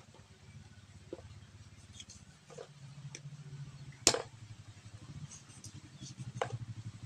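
Knife clicking and tapping as a scalded chicken is cut up over a basin, with a steady low motor hum underneath. The sharpest click comes about four seconds in.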